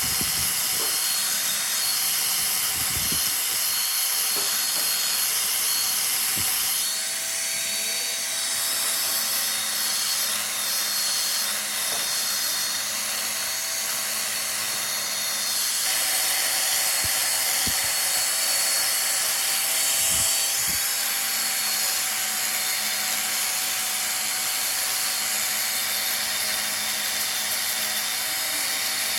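Wood lathe running, a steady motor whine under a continuous hiss of a tool or abrasive working the spinning wood. The sound shifts abruptly twice.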